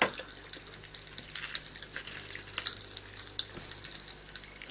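Strawberry popping candy crackling in a child's open mouth: a dense run of tiny sharp pops.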